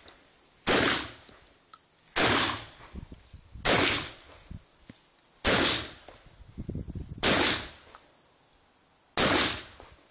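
Hatsan Escort MPA pump-action shotgun fired six times in quick succession, a shot about every one and a half to two seconds, with the pump-action clacking between shots.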